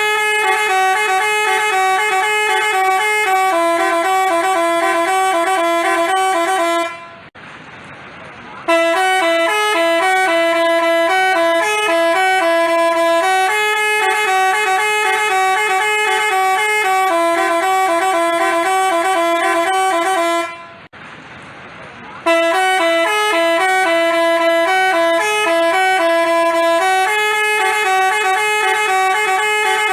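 Telolet-style 'basuri' multi-tone bus horn playing a tune in stepped notes, with two brief pauses about seven and twenty-one seconds in.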